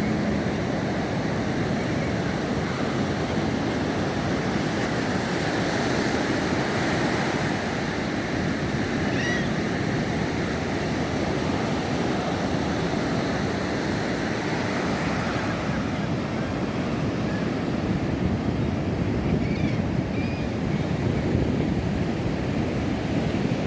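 Steady wash of ocean surf breaking on a beach, with a few faint short calls from guano seabirds now and then.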